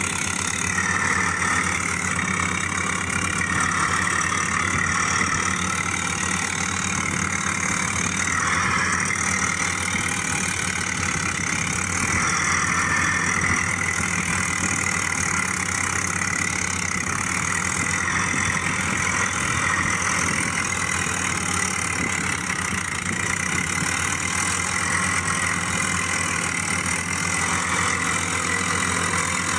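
Tractor engine idling steadily, an even chugging at a constant pitch with no revving.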